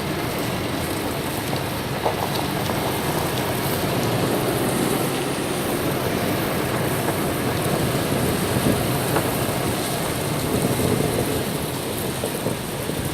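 Toyota Tacoma pickup truck running slowly in four-wheel-drive low under load, dragging a log, with a steady rushing noise throughout.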